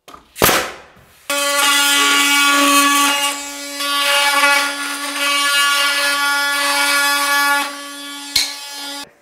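One sharp shot from a pneumatic nail gun about half a second in. Then a cordless drill-driver runs with a steady whine for about eight seconds and stops suddenly.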